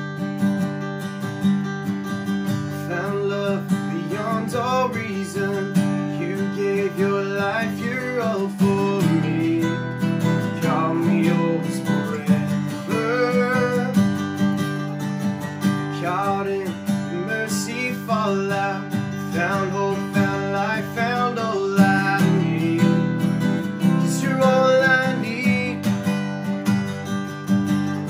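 Two acoustic guitars playing together, with steady strummed chords and a melody line over them.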